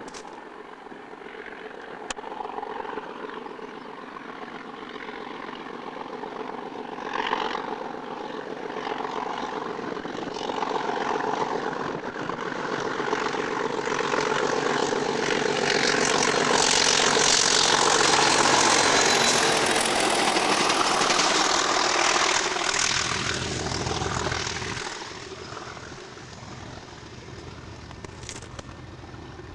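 Pair of Class 37 diesel locomotives running light, their English Electric V12 engines drumming. The sound grows louder as they approach, is loudest a little past halfway as they pass, then fades away.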